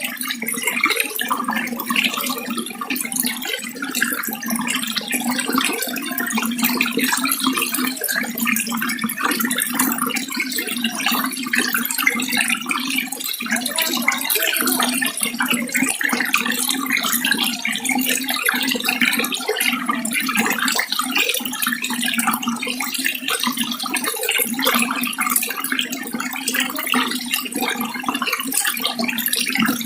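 Water running and splashing steadily, a continuous, even rush with a fine bubbling texture.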